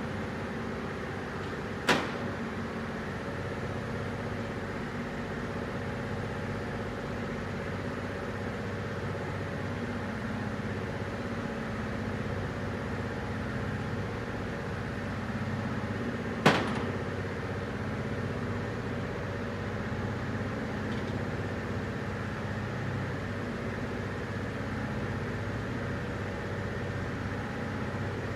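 Toyota 3UR-FE V8 engine idling steadily, with two sharp clicks, one about two seconds in and one about halfway through.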